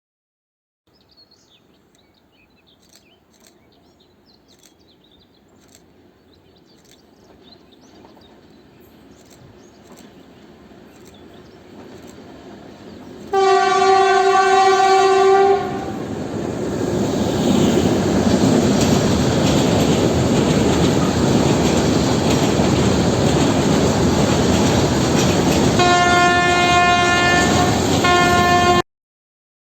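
A train approaching, its noise building slowly, then a long horn blast on one steady pitch about 13 seconds in. It passes close with loud wheel and rail noise and wheel clatter, sounds its horn again near the end in a blast with a brief break, and the sound cuts off suddenly.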